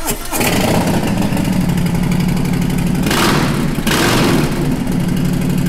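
A motorcycle engine catches and idles with a steady low beat, revved once briefly about three seconds in.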